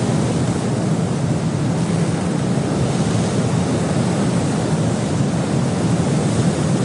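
A steady rushing noise, like wind or surf, holding an even level throughout.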